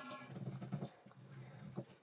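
A bench chisel paring the end grain of a bog oak handle tenon clamped in a vise: several short cuts, each with a creaky, squeaky pitched scrape from the dense wood.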